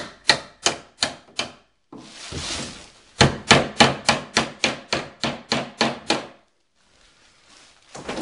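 Hammer striking wooden wall framing in quick runs of blows, about four a second, with a short scraping rub between the runs.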